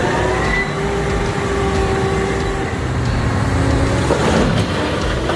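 Heavy diesel engine of a large earth-moving machine running under load, its pitch shifting slightly up and down.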